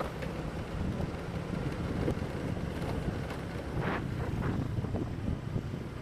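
Steady road noise of moving traffic, with wind buffeting the microphone.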